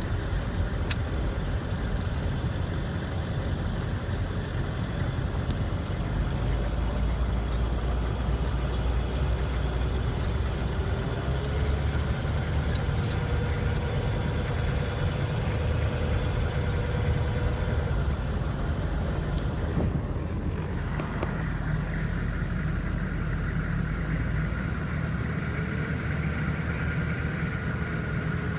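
Heavy vehicle engine running steadily with a low drone; its tone shifts about twenty seconds in.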